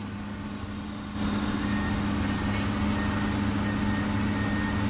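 Heavy machine's diesel engine running steadily, stepping up in loudness about a second in.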